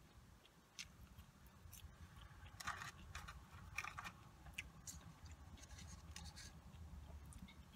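Quiet car interior with faint, scattered scratchy clicks and scrapes from someone eating and handling small food items, loudest about three to four seconds in.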